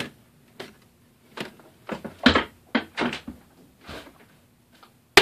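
A string of light knocks and clicks with some rustling, about half a dozen in all and loosest around the middle: handling at a tabletop and a person moving about as he gets up from it.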